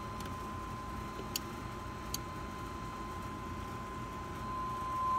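Steady 1 kHz sine test tone from an amplifier under bench test, getting louder near the end as the signal is turned up toward full power. Two faint clicks in the first half.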